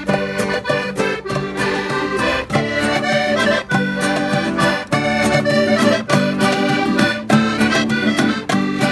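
Button accordion playing a lively Portuguese folk tune, over strummed acoustic guitar and a steady hand-drum beat.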